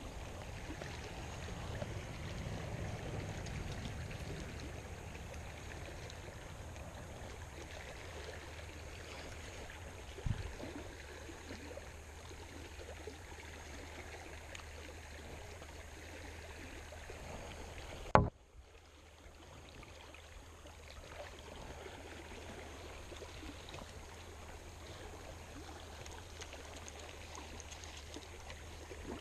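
Shallow creek water running steadily. There is a dull bump about ten seconds in, and a sharp knock a little past halfway, after which the water sound is briefly quieter.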